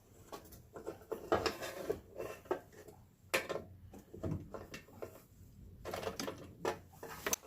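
Irregular clicks and light knocks of small hard parts being handled, as the removed fuel level sensor unit is worked by hand.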